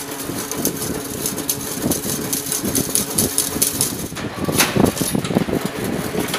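Chain link fence-making machine running: a steady hum with irregular clattering over it, loudest a little after the middle.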